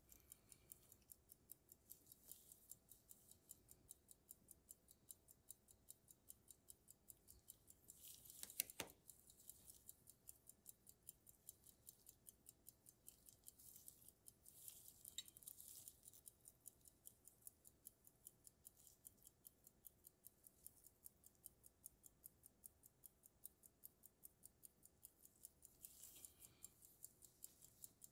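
Antique pocket watch movement ticking, a faint, fast, even tick about five times a second, running on its own after winding. Short handling rustles break in a few times, with one sharp knock about nine seconds in as the watch is moved.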